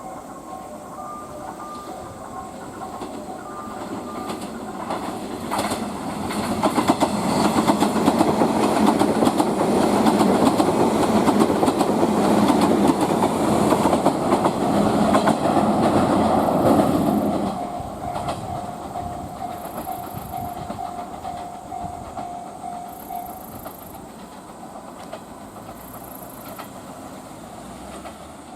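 A train passing through the station, its wheels clicking over the rail joints. It grows loud over a few seconds, stays loud for about eleven seconds, then drops away suddenly as the last car goes by.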